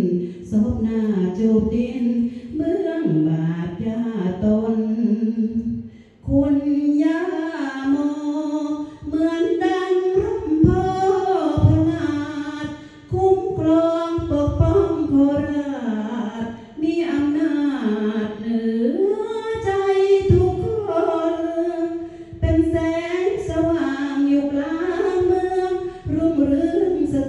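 A woman singing a Thai folk song unaccompanied, in long phrases of held, ornamented notes with short breath pauses between them.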